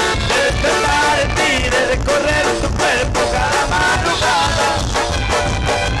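Norteño band music with a steady beat and a melody line over it.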